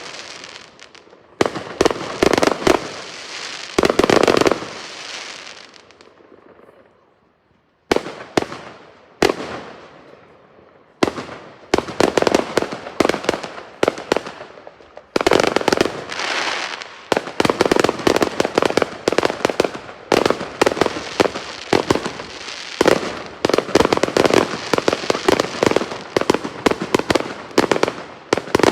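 Fireworks going off in rapid volleys of sharp bangs and crackling, dying away into a short lull about six seconds in, then resuming and running almost without a break from about eleven seconds on.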